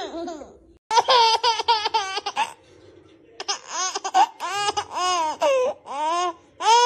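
A baby laughing in high-pitched bursts of rapid giggles, with short pauses between the runs.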